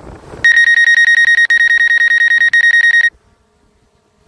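Drone remote controller warning alarm: a loud, rapid, high-pitched electronic beeping for about two and a half seconds, with two brief breaks, then the sound cuts off abruptly.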